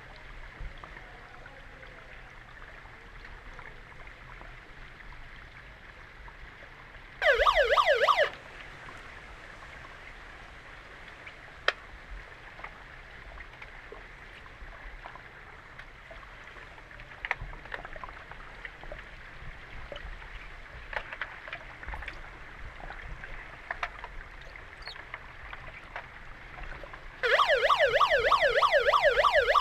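Underwater hockey referee's underwater siren sounding twice through the water, a fast warbling tone: a one-second blast about seven seconds in and a longer blast starting near the end, signalling a stop in play. Between the blasts there is a steady hiss of pool water with a few sharp clicks and knocks.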